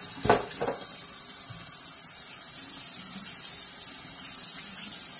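Kitchen tap running steadily over canned red kidney beans in a strainer, rinsing off the canning liquid, with two short knocks early on.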